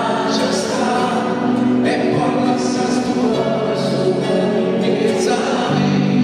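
A man singing a Neapolitan song in long held notes, accompanied by strummed acoustic guitar and a mandolin, performed live.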